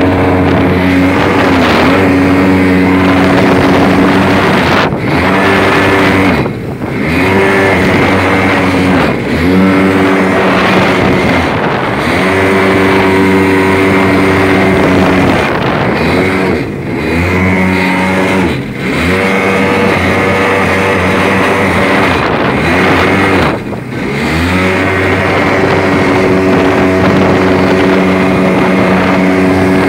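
Boat driven by a 650cc two-stroke jet ski engine running hard at speed. Its note drops and climbs back several times as the throttle is eased and reopened, over a steady rush of water.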